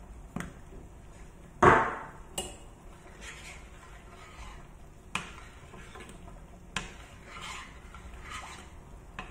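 A metal whisk stirring milk-and-cream sauce in a stainless-steel saucepan: soft swishing with sharp clinks against the pan now and then, and one louder knock about a second and a half in.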